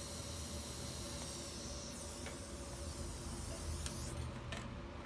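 TIG welding arc on stainless steel, a steady hiss with a thin high whine, tailing off partway through as the weld is finished. A few light clicks follow near the end.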